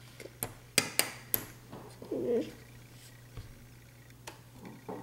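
Snap Circuits plastic snap pieces clicking as they are pressed onto the clear plastic base grid: a quick run of sharp clicks in the first second and a half and a few fainter ones near the end. A brief hum-like sound comes about two seconds in.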